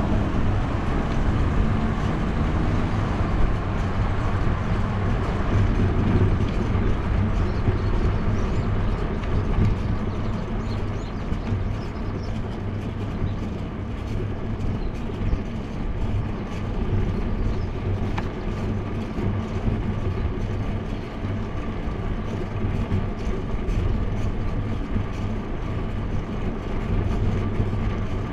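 Steady wind noise on a bicycle-mounted action camera's microphone during a ride, a low rumble with a hiss above it.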